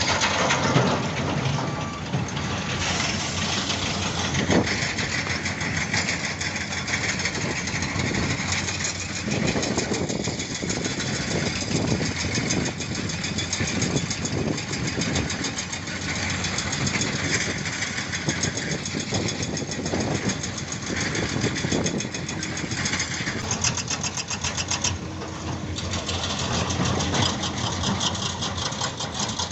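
Heavy diesel engines of construction machinery, excavators and dump trucks, running steadily with a fast, even clatter over them.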